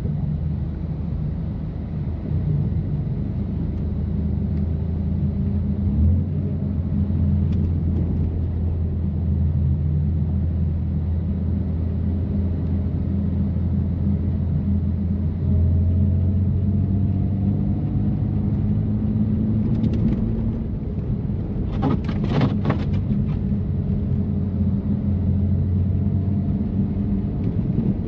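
2018 BMW M3 Competition's twin-turbo inline-six, with catless downpipes and always-open exhaust valves, cruising with a steady low drone. A short burst of clicks comes about three-quarters of the way through.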